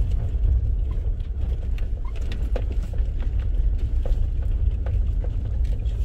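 A vehicle driving along a dirt road: a steady low rumble of engine and tyres, with scattered small knocks and ticks from the rough surface.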